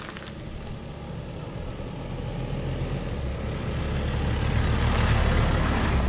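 A four-wheel drive approaching along a dirt track and passing close by: engine rumble and tyre noise on the gravel grow steadily louder, peaking near the end.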